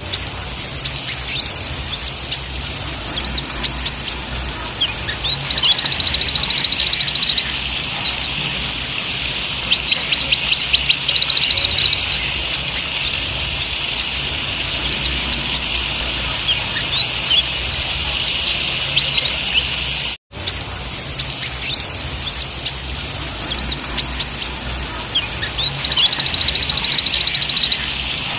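Several kolibri ninja (sunbirds) singing: quick high chirps and bursts of rapid trilling, over a steady hiss. The recording loops, dropping out for an instant about two-thirds of the way through before starting over.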